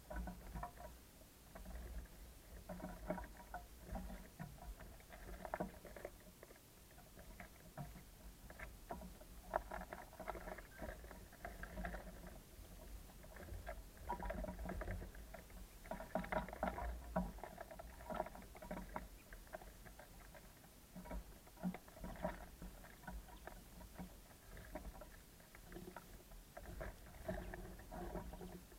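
Small birds feeding at a wooden bird feeder: irregular clusters of pecking taps and scratching on the wood, coming and going, over a low steady rumble.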